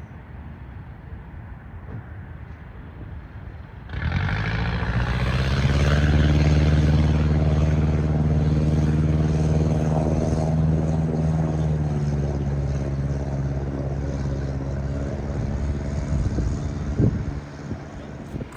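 A vehicle driving through floodwater. Its engine comes in suddenly about four seconds in with a steady note and a hiss of water, then fades near the end.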